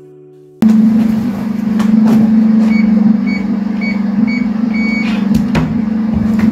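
An electronic locker keypad beeping about six times at an even pace, the last beep longer, as a changing-room locker is unlocked, with a few clicks of the locker door. Under it runs a loud, steady low hum.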